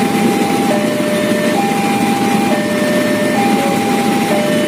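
Indonesian railway level-crossing alarm sounding its standard PT KAI warning: two electronic tones, high then low, each held about a second and alternating steadily, signalling that the barrier is down for an approaching train. Underneath runs a steady low rumble.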